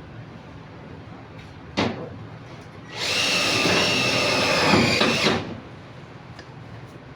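Power drill running in one burst of about two and a half seconds, starting and stopping abruptly, preceded by a single sharp click.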